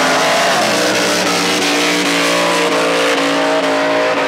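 Two cars doing side-by-side power skids (burnouts), their engines held at high revs, the pitch dipping and climbing a few times, over the hiss of spinning rear tyres.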